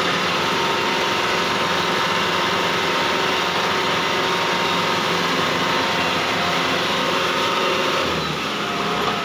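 Tractor diesel engine running steadily as the tractor drives through a flooded paddy, heard from the driver's seat; the low part of the drone shifts slightly near the end.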